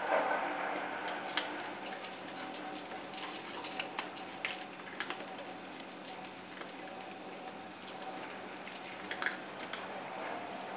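Three cats eating dry kibble from one shared bowl: irregular crunching and small clicks of kibble against the bowl.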